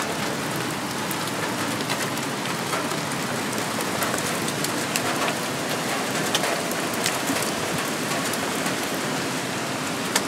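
Thunderstorm rain falling steadily, a dense hiss with scattered sharp ticks of drops striking close by.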